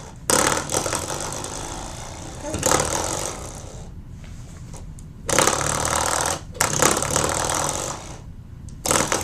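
Coiled-spring door stopper being flicked over and over by a baby's hand, each flick a sudden buzzing twang that dies away over a second or two, about five times.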